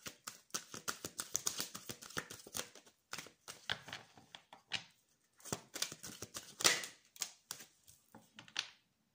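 A tarot deck being shuffled and handled: rapid card-against-card clicks and flicks, thinning into scattered groups and stopping shortly before the end.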